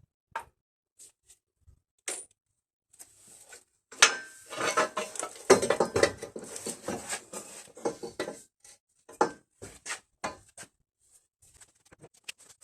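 Small metal parts and hand tools clinking and rattling as they are handled, with a dense clatter of metal on metal for a few seconds in the middle and single clicks around it.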